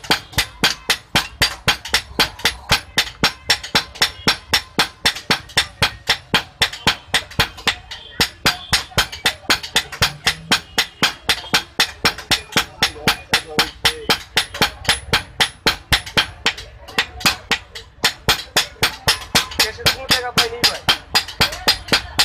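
Two blacksmiths' hand hammers striking a hot steel boti (chopper) blade on an anvil in alternating blows, a steady rhythm of about four metallic strikes a second. The rhythm breaks off briefly a little over two-thirds of the way through, then resumes.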